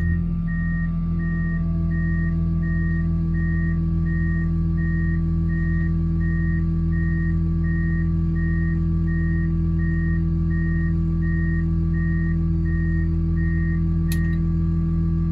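Heavy machine's reverse-warning beeper sounding about twice a second over a steady diesel engine hum, then stopping with a click near the end.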